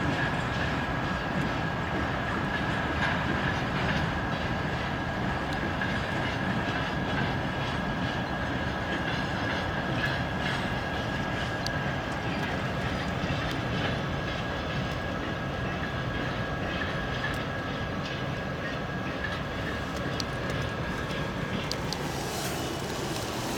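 TEM2 diesel shunting locomotive and a string of covered hopper cars rolling past, a steady rumble of the engine and of the wheels on the rails. A thin steady high tone sits over the rumble and fades out near the end.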